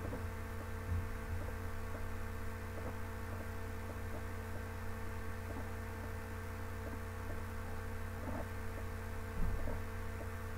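Low, steady electrical mains hum, with a few faint soft knocks as sticky dough drops into a glass bowl.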